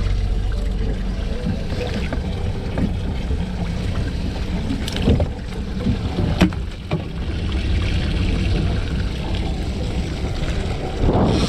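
Wind rumbling on the microphone aboard a small boat, with water sloshing in the bait well as live mackerel are handled. A few sharp knocks, the loudest about six and a half seconds in.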